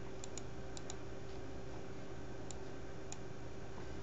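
Several light computer mouse clicks, some in quick pairs, over a steady low background hum.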